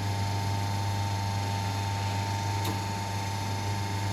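Electric motor of a rebar cutting and bending machine running steadily with a low hum while it bends; a faint click about two-thirds of the way through.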